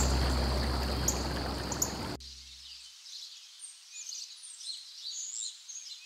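Background music fading down, cut off about two seconds in. Then birds chirping and singing in short high calls over a faint outdoor background.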